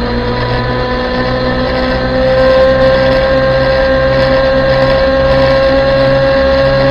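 Small electric motorbike's motor whining under way, one steady tone creeping slowly up in pitch as it gathers speed, over a rush of wind and tyre noise. It gets louder about two seconds in.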